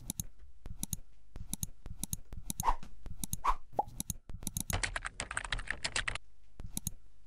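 Computer sound effects for an animated logo: scattered mouse clicks, then a quick run of keyboard typing about five seconds in that lasts a second and a half.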